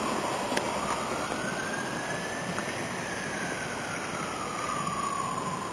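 A siren wailing, its pitch rising slowly for about three seconds and then falling again, over a steady rushing noise.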